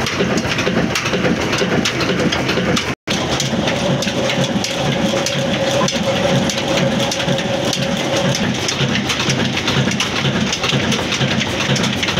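Old black diesel engine with a large flywheel running steadily under belt drive, a dense, rattling clatter. The sound cuts out for an instant about three seconds in, and then a faint steady whine runs for a few seconds.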